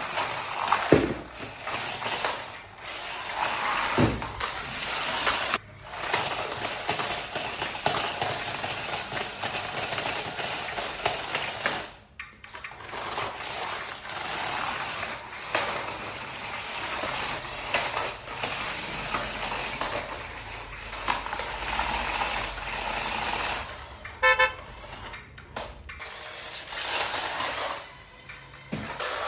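Toy RC cars being unboxed and run: plastic parts and packaging handled with many small clicks and knocks, and small electric motors driving the toy wheels. Electronic toy sound effects, with a quick run of short beeps near the end. The sound stops abruptly several times between short takes.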